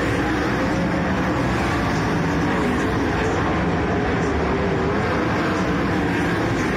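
Open-wheel speedway race cars (sprint cars or speedcars) racing on a dirt oval: several engines running hard in one continuous loud drone, their pitch rising and falling as the cars pass.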